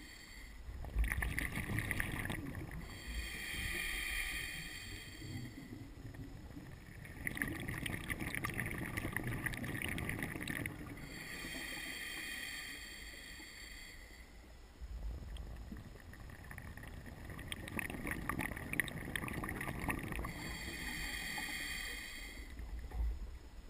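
Scuba diver breathing through a regulator. Three bubbling exhalations with a low rumble alternate with three hissing inhalations that carry a steady whistle, one full breath every seven or eight seconds.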